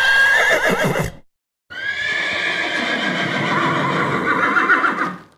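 A horse whinnying twice: a short neigh of about a second, then after a brief pause a longer, wavering neigh lasting over three seconds.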